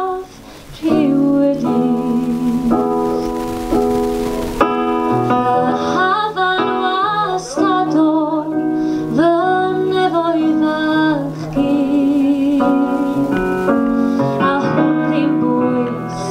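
A woman singing a Welsh-language song, accompanying herself on a Casio electric keyboard playing held chords. There is a brief break in the singing just after the start, then the voice comes back in over the chords.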